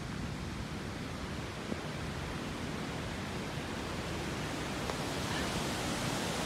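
A stream in flash flood after a hurricane, its floodwater rushing steadily.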